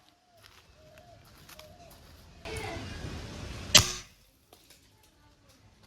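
A single shot from a .22 Weihrauch HW80 spring-piston air rifle about four seconds in, a short sharp crack. About a second of handling noise comes just before it.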